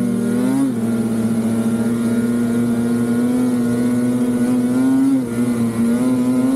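Polaris 9R snowmobile's two-stroke engine running under throttle at a steady high pitch as the sled cruises along a trail. The pitch dips briefly about half a second in and again about five seconds in before picking back up.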